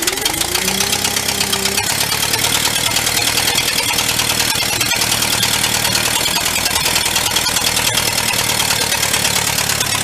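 Gasoline engine of a vintage engine-driven air compressor running loud and steady just after starting, its pitch rising over the first second or two and then holding at a fast, even firing beat.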